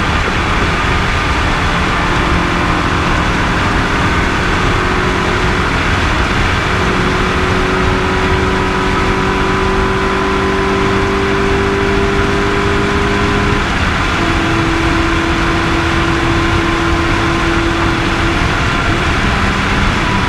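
Rally car's engine running hard at speed on a long straight, heard from inside the cabin over steady road and wind noise. The engine note climbs slowly, then drops slightly about 14 seconds in and holds steady.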